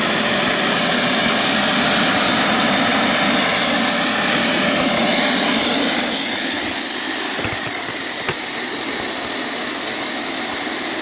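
Home-made small turbojet gas turbine with a centrifugal compressor running on pumped kerosene: a loud, steady jet roar and hiss. A high whine slides down in pitch about six to seven seconds in.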